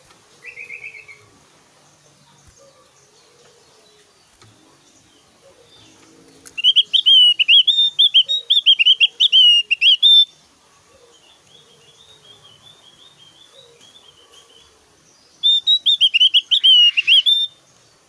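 Javan grey-throated white-eye (opior Jawa) singing: a short note near the start, then a loud fast run of warbled up-and-down notes for about three and a half seconds, softer warbling after it, and a second loud burst of about two seconds near the end.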